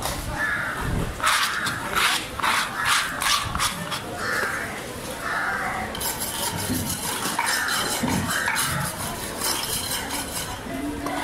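Crows cawing repeatedly. Sharp knocks and clinks of a steel cleaver on a wooden chopping block come in a cluster from about one to four seconds in.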